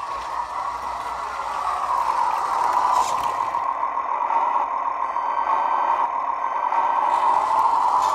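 Electric drive motor and gearbox of a 1/16-scale radio-controlled toy tractor whirring steadily as it drives over a concrete floor. The whirr gets louder about two seconds in as the tractor comes close.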